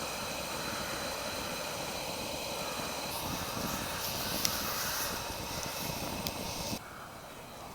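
Steady hiss of a Coleman pressure lantern burning, with a couple of sharp clicks; the hiss drops off suddenly near the end.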